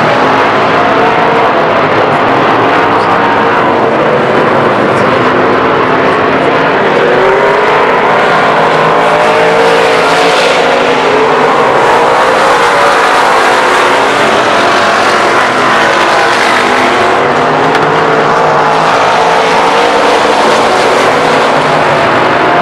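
Several dirt-track stock car engines running hard at race speed. Their overlapping engine notes rise and fall as the cars circle and pass, loud and unbroken throughout.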